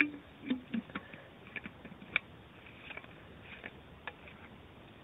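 Scattered light clicks and taps of a plastic water bottle's flip-top lid being fiddled with and closed. The sharpest clicks come at the start and about two seconds in.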